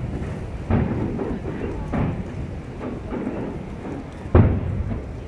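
Aerial fireworks shells bursting at a distance: several deep booms, each followed by a rolling rumble, with the loudest boom near the end.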